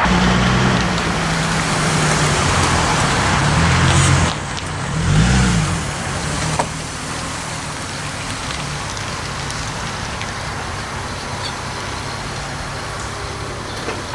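A vehicle engine running steadily, with a brief rev rising and falling about five seconds in; after that the engine sound drops away, leaving a steady background hiss.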